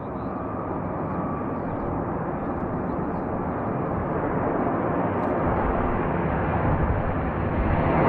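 B-52 bomber's eight jet engines at takeoff power: a steady rushing jet noise that grows gradually louder as the bomber comes down the runway.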